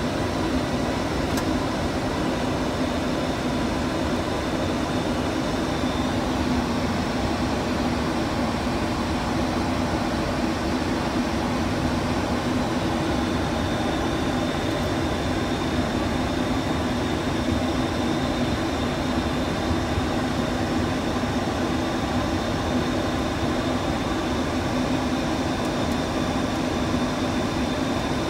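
Steady flight-deck noise of a Boeing 737-800 in flight: the even rush of air around the cockpit with a low hum and a faint high whine from the ventilation and equipment fans.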